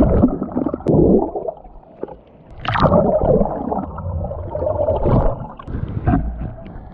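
Churning water and bubbling heard underwater in heavy surf, coming in irregular rushing surges every second or two.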